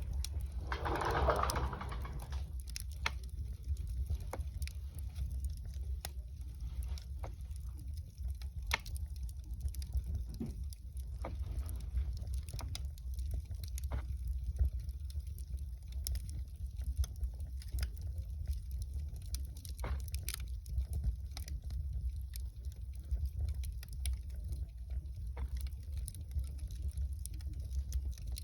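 Wood fire crackling, with irregular sharp pops over a steady low rumble and a brief louder rush of noise about a second in.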